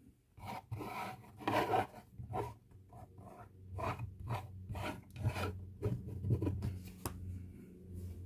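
Plastic display stand of a model airliner scraped and slid across a desk as the model is turned by hand, a run of irregular rubbing scrapes.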